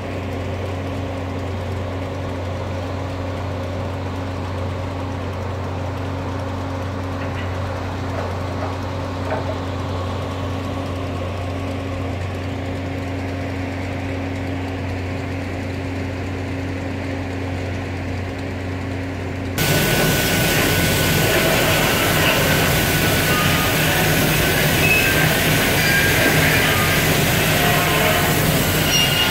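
Steady drone of the SUZ 500 track renewal train's engines and machinery, a low hum with a few fixed tones. About twenty seconds in it cuts abruptly to louder, rougher machine noise.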